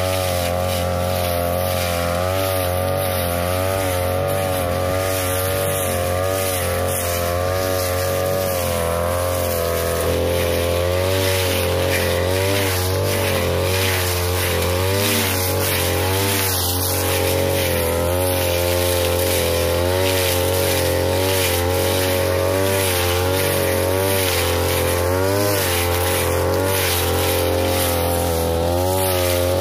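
A 42cc brush cutter fitted with a metal blade runs at high speed under load. Its pitch dips and rises every second or so as the blade swings through thick grass.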